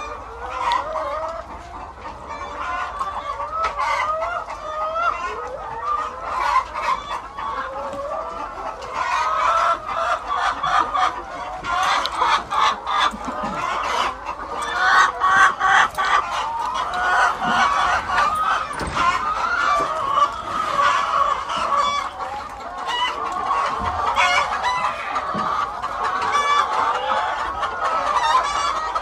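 A large flock of brown laying hens clucking and calling, many voices overlapping without a break, with scattered sharp clicks among them.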